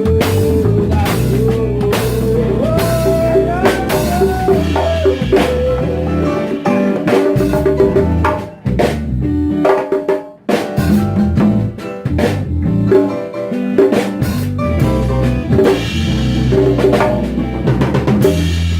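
Live band music: drum kit and percussion playing a groove under a melodic lead line. There is a short break about halfway through.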